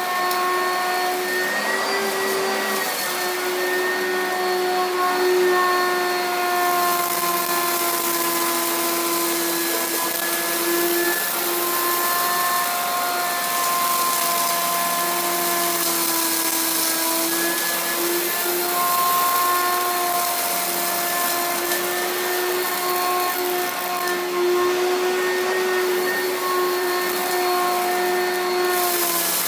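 Upright vacuum cleaner running on carpet: a steady motor whine with a strong hum underneath, its pitch wavering slightly now and then as it is pushed over clumps of lint and dirt.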